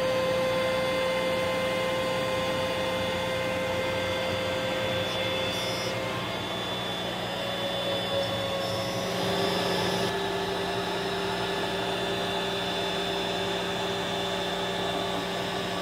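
Wood router mounted on a small 3040 CNC machine running steadily as it mills plywood, together with a vacuum pulling dust through the dust-collector hose. The router's whine changes pitch a couple of times as the cut goes on.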